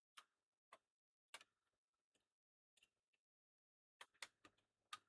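Faint, scattered clicks and taps of laptop parts being handled during disassembly, coming more quickly near the end.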